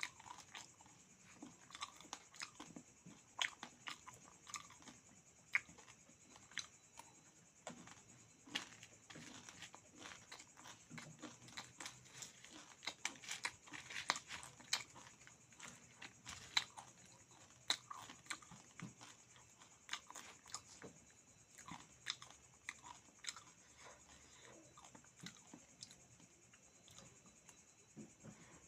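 Person chewing meat and crunchy beaten rice close to the microphone: an irregular run of short crunches and mouth clicks, several a second.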